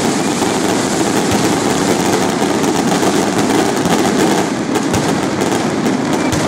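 Fireworks going off continuously overhead: a loud, unbroken din of hissing and crackling, with sharp bangs scattered through it and more of them in the last couple of seconds.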